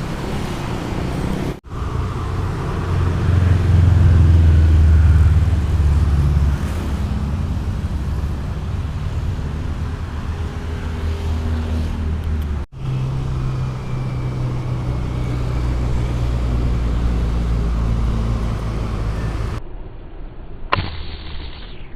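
A motor running steadily with a low, even hum, cut off abruptly twice by edits; near the end a short high tone sounds.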